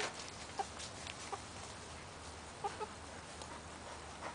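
Backyard hens clucking softly, a few short, scattered clucks.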